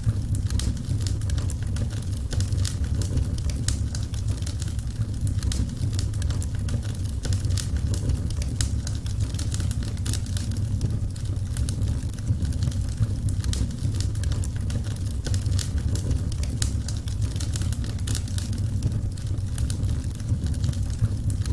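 Wood fire crackling: a dense, continuous stream of sharp pops and snaps over a steady low rumble.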